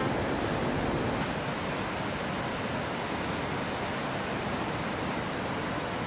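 Steady rush of Gullfoss waterfall's water plunging into its gorge, an even, unbroken noise; the highest hiss thins about a second in.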